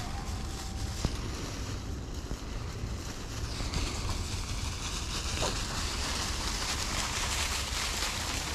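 Footsteps and beagle pups crunching and rustling through dry fallen leaves, with wind rumbling on the microphone.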